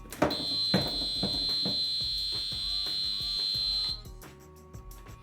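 A fire alarm sounder on a demonstration system gives one steady, high-pitched tone for about three and a half seconds, then cuts off sharply.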